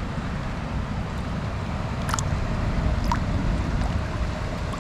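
Steady rushing of a flowing trout stream, with a low wind rumble on the microphone. Two brief faint clicks come about two and three seconds in.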